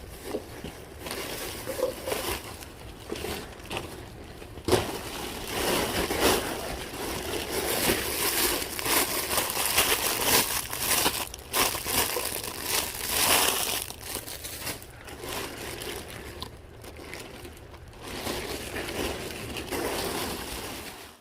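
Continuous rustling and crinkling of bags and packaging being handled and rummaged through, with many small clicks and knocks. It cuts off suddenly near the end.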